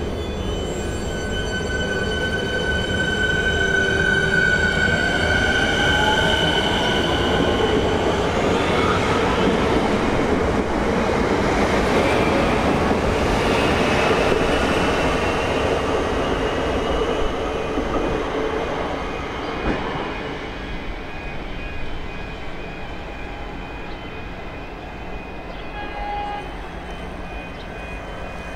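Siemens Nexas electric multiple unit pulling away and accelerating, its traction equipment whining in steady high tones with a rising glide, over wheel and rail noise. The sound peaks as the rear car passes, then fades away over the last ten seconds.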